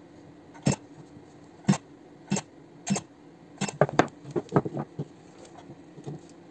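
Battery spot welder firing nickel-strip welds onto 18650 lithium-ion cells: a series of sharp snaps, roughly one a second, followed by a quicker run of smaller clicks. A faint steady hum runs underneath.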